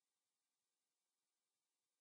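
Near silence: a pause in the narration with only a faint residual hiss.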